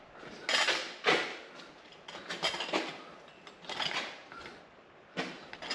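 A series of short, irregular creaks and knocks, like things being handled and shifted, about five or six of them.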